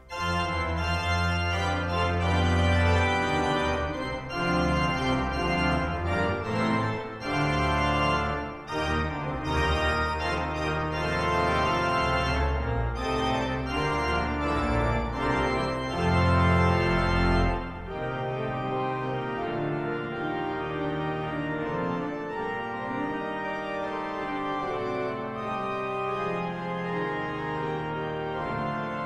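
Leeds Minster's pipe organ playing a piece, loud with deep pedal bass notes under it for the first two-thirds. About eighteen seconds in the bass drops out and it goes on more softly.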